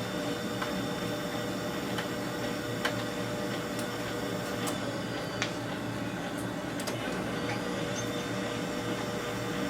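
Samsung CLP510 colour laser printer running a test print: a steady mechanical hum with a faint whine, broken by scattered light clicks.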